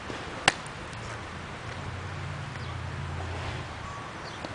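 A pitched baseball smacks into the catcher's mitt once with a sharp pop, about half a second in. A low, steady hum follows for a couple of seconds.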